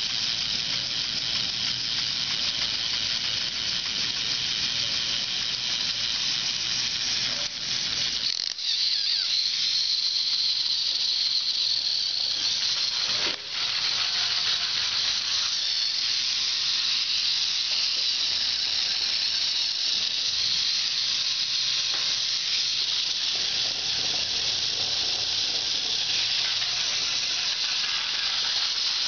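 K'nex Flash/Ace Combo microbot's small battery motor and plastic gears running with a steady high-pitched whirr as the robot drives itself along and flaps its arms. The whirr dips briefly twice, about 8 and 13 seconds in.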